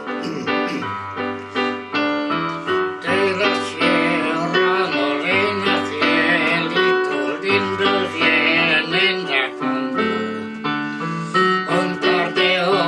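Piano playing a Spanish song, with a singing voice in vibrato joining about three seconds in over the steady piano chords.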